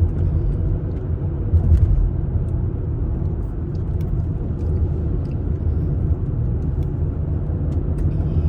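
Steady low road and engine rumble of a car heard from inside the cabin while driving.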